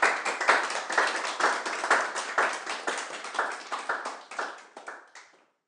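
Audience clapping after a talk, thinning out and fading away about five seconds in.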